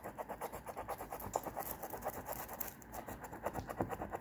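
A coin scratching the latex coating off a scratch-off lottery ticket, in quick rapid strokes of several a second.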